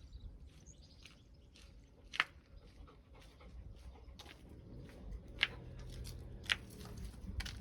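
A dog making soft sounds close to the microphone, amid scattered sharp clicks and taps.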